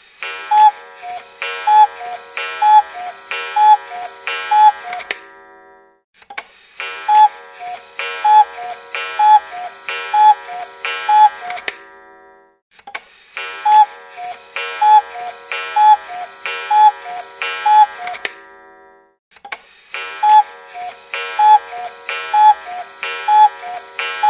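A short chiming melody of about eight struck notes alternating between two pitches, repeated four times with a brief silence between each repeat.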